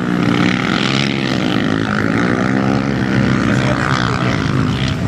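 Race-modified ATV quad engines running hard, their pitch rising and falling as the riders throttle up and back off around the track.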